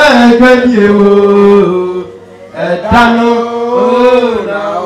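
A single voice singing a worship chant in long held notes. The pitch steps down across the first phrase, breaks off about two seconds in, and a second held phrase begins about a second later.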